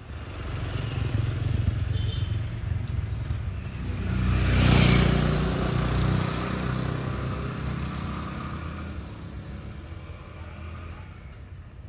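Motor vehicle engine rumbling as it passes by, loudest about five seconds in and then fading away.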